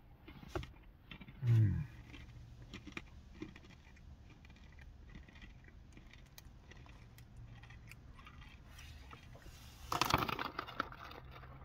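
Crunchy coated peanuts being chewed with the mouth closed, a scatter of small crunching clicks, with a short hum about a second and a half in. Near the end a hand digs into the snack bag and it rustles loudly.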